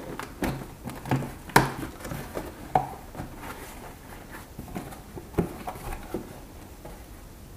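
Knife slicing through packing tape on a cardboard box and the cardboard flaps being pulled open: a string of scrapes, rips and knocks, the sharpest about a second and a half in.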